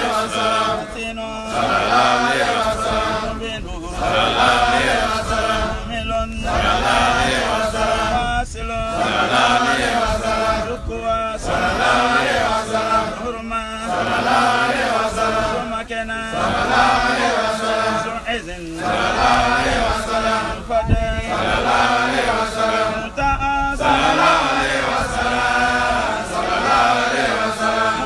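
A group of men chanting the names of God in Arabic, in short sung phrases about two and a half seconds long with brief breaks between them.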